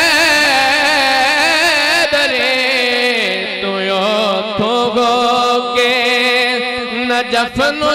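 A man singing a Punjabi naat unaccompanied into a microphone, drawing out long held notes with wavering, ornamented pitch.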